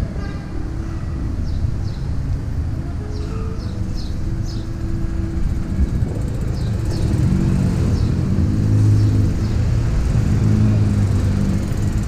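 Low wind and rolling rumble from an electric unicycle riding over paving stones through city traffic. A vehicle engine's hum grows louder in the second half.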